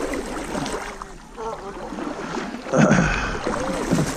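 Indistinct voices of people talking, with a louder burst of voice a little under three seconds in.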